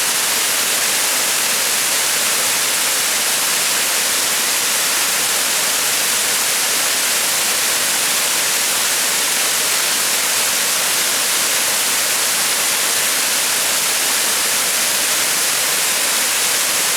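Waterfall: a steady, loud, even rush of falling water, bright and hissing.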